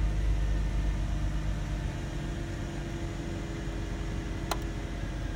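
2005 Mercedes-Benz C240's V6 engine idling steadily at about 1000 rpm shortly after a cold start, heard from inside the cabin. A single sharp click about four and a half seconds in.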